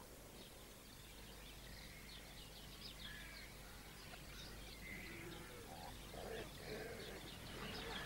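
Faint birdsong: small birds chirping over a quiet outdoor background, growing slightly louder toward the end.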